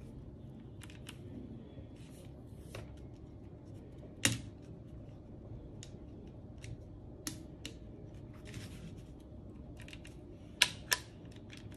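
Small clicks and light knocks of a Tokyo Marui M4A1 MWS gas blowback rifle's metal receiver parts being handled and opened, with a sharper click about four seconds in and two quick clicks near the end.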